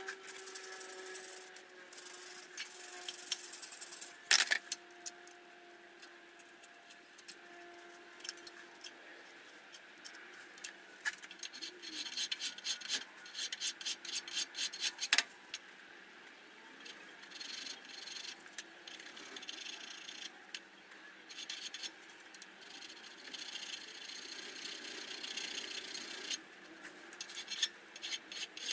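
Hand file rasping across the slot of a cast aluminium fly cutter body clamped in a bench vice, in runs of quick strokes broken by pauses. A few sharp clicks of the file against the work.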